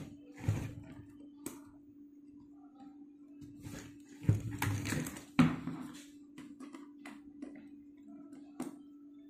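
Hands handling a hard plastic motorcycle helmet and a small plastic action-camera mount: scattered clicks and taps, with a burst of louder knocks and rustling about four to six seconds in. A steady low hum runs underneath.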